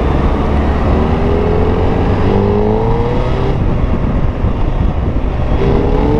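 Suzuki Hayabusa's inline-four engine accelerating: its pitch climbs, drops at a gear change and climbs again, eases off, then climbs once more near the end, over a steady low rumble of wind and road noise.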